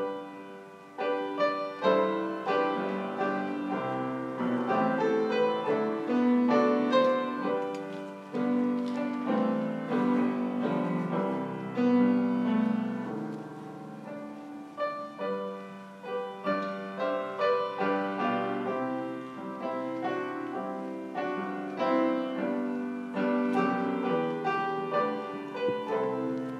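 Solo piano playing the offertory music while the offering is taken, with chords and a melody line.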